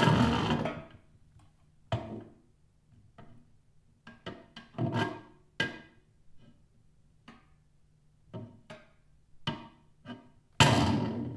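Snare drum played with sticks in a sparse, extended-technique way. A loud sustained noise from the drum dies away within the first second, then single taps and short strokes on the head and rim come at irregular intervals. A second loud sustained stroke starts near the end.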